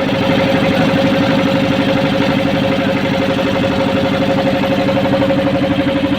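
Motorboat engine running steadily with a fast, even throb.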